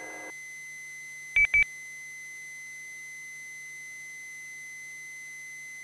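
Two short electronic beeps on a two-way radio channel, close together about a second and a half in. Under them is a faint steady high tone and a low hum on the radio audio.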